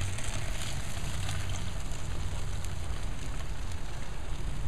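Honey garlic sauce sizzling as it is poured into a hot tin-foil tray of chicken drumsticks on a charcoal grill: a steady hiss with a few faint crackles over a low steady hum.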